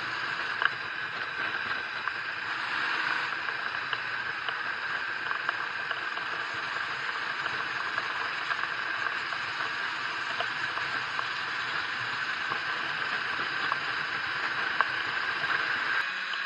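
Steady rush of wind and road noise from a motorcycle riding along at speed, with no distinct engine note standing out; it changes abruptly near the end.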